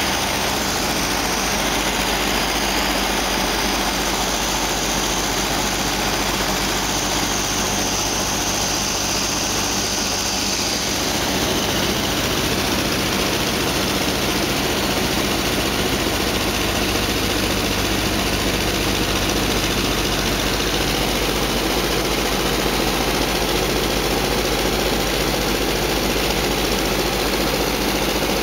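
Steady drone of an aircraft's propeller engines, heard from inside the cockpit in flight, at an even level throughout.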